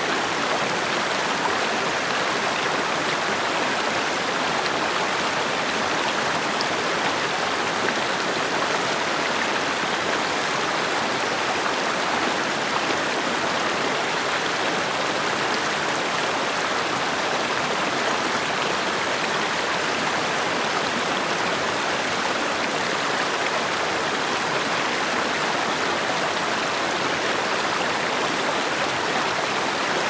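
Mountain creek rushing steadily, a loud, even sound of running water with no breaks.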